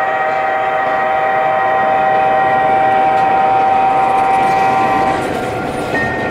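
Multi-note air horn of a 1:29-scale model diesel locomotive, one long blast for the grade crossing that cuts off about five seconds in, over the steady rumble of the train rolling on its track.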